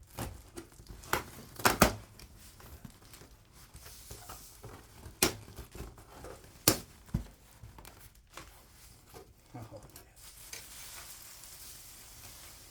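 Cardboard box and packaging being handled and opened: several sharp clicks and knocks, rustling and crinkling, then a longer scratchy rubbing near the end.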